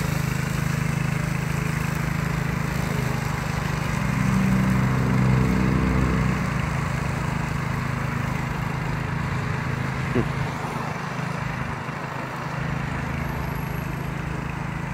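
Small petrol engine of a walk-behind mower running steadily as it cuts grass, getting somewhat louder about four to six seconds in.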